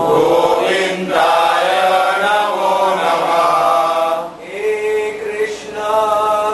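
A man chanting a Hindu devotional mantra, drawing out long held notes, with a short break for breath about four seconds in.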